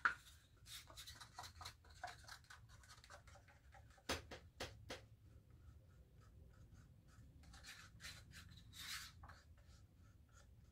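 Faint scratching and light taps as a wooden stir stick scrapes acrylic paint out of a small paper cup into a sink strainer. There is a sharp click at the very start and a few more taps about four seconds in.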